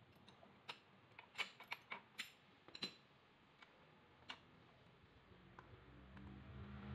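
Light metallic clicks and taps as the hardware of a shock absorber strut assembly is handled: the top mount, its studs and loose nuts. A quick run of clicks comes in the first three seconds and one more a little after four, with only faint ticks after that.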